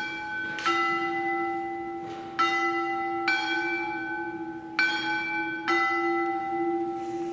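Altar bells rung at the elevation of the chalice during the consecration. Two bell notes are struck alternately, roughly in pairs about a second apart, and each rings on until the next strike.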